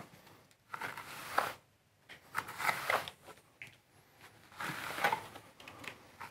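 Steel smoothing trowel drawn through wet brick-slip compound on a wall: about four gritty scraping strokes, each under a second, as a 3 to 4 mm coat is spread.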